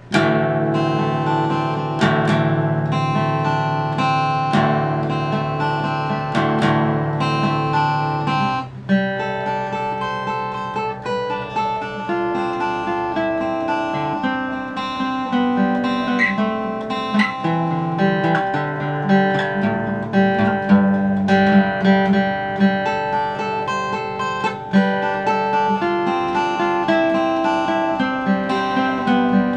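Steel-string acoustic guitar played fingerstyle: a busy picked melody over ringing bass notes, starting suddenly with a hard first note and with a few sharp accented hits in the first seven seconds.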